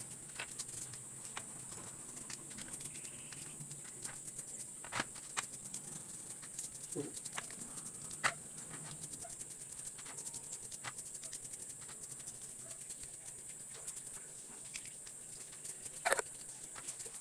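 Light clicks and taps of small metal parts as a motorcycle carburetor is dismantled by hand, with a few sharper clicks about five, eight and sixteen seconds in, over a steady high-pitched hiss.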